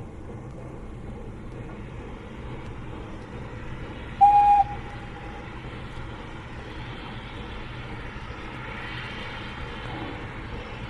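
South Australian Railways T-class and 400 class Garratt narrow-gauge steam locomotives working a heavy loaded train uphill, a steady rumble. About four seconds in, a short, loud, single-note steam whistle blast lasts about half a second.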